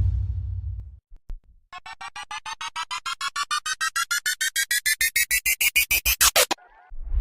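Synthesized sound effect: a rapid train of electronic beeps, about nine a second, rising steadily in pitch and growing louder for several seconds, then cutting off suddenly, like a charging or power-up effect. It follows the fading tail of a low whoosh.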